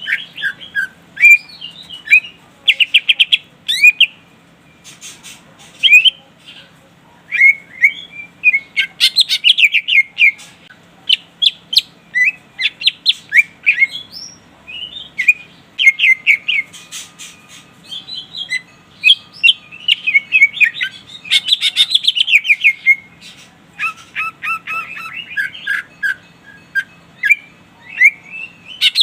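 Green leafbird (cucak ijo) singing hard: rapid, varied chirps, trills and short whistled phrases in bursts of a second or two with brief pauses between them. It is a challenging song that calls out rival birds.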